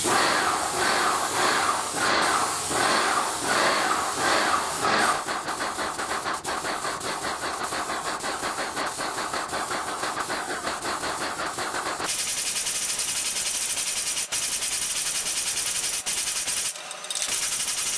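Airless paint sprayer spraying primer onto a ceiling: the pump running with a regular pulsing under the hiss of the spray gun. About twelve seconds in it changes to a steadier, brighter hiss, broken briefly near the end.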